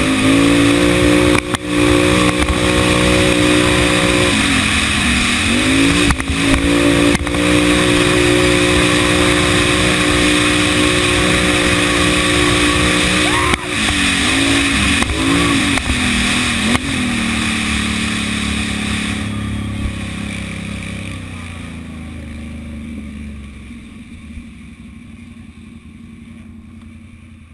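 Can-Am (Bombardier) quad's engine running hard at high, steady revs, its note dipping and climbing back several times as the throttle is eased and reopened. Over the last several seconds the engine note drops and grows steadily quieter as the throttle is eased off.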